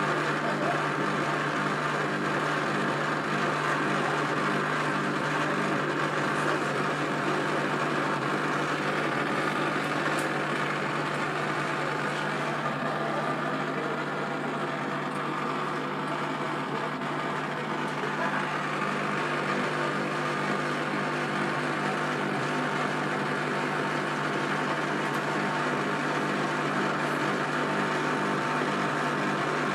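Servis Caress 1300 washing machine on its spin at a steady pace, with a constant hum and a rumble from its badly worn drum bearings.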